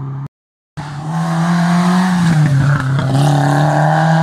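Historic rally car engine running hard on a special stage. After a brief dropout near the start, the engine comes in loud, its pitch dips briefly around the middle, then holds steady at high revs.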